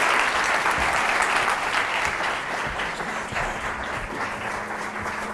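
Audience applauding at the end of a talk, the clapping slowly dying down.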